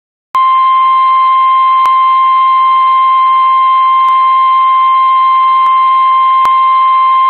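NOAA Weather Radio's 1050 Hz warning alarm tone: one steady, loud, piercing beep held unbroken, starting a moment in, over faint radio hiss. It is the signal that a warning broadcast is about to follow, here a severe thunderstorm warning.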